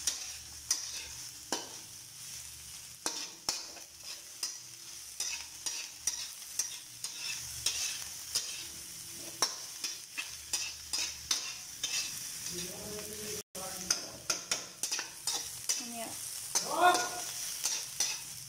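Metal spatula stirring and scraping shredded cabbage and chayote around a metal wok, with frequent clicks of the spatula against the pan over a steady sizzle of frying oil.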